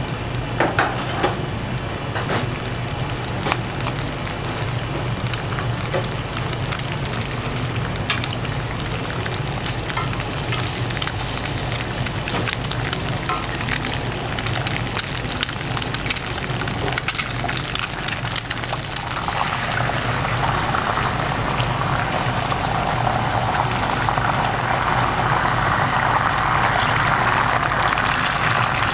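Beaten egg sizzling in a nonstick frying pan over a gas flame, a steady crackly hiss with scattered pops over a low hum. About two-thirds of the way through, the sizzle grows louder and denser.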